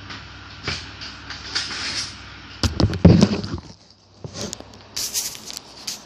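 A box and its packing being opened and handled by hand: irregular rustling and scraping, with a cluster of louder knocks about three seconds in.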